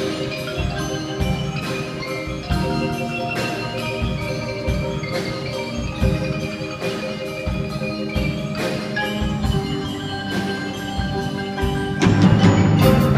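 A youth band plays a melody on mallet percussion, with rows of struck, ringing pitched notes like marimba and bells. About a second before the end, the music gets louder and fuller.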